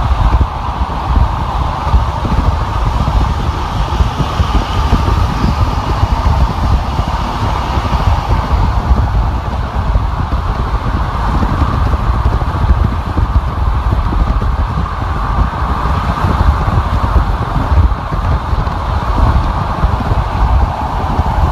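Car driving on a freeway: steady tyre and road noise with a continuous low rumble and a band of hiss, unchanging throughout.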